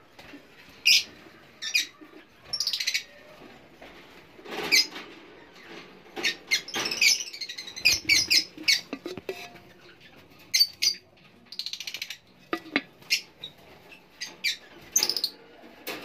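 Lovebirds giving short, sharp, high-pitched chirps and squeaks, many in quick irregular succession, with runs of calls close together in the middle.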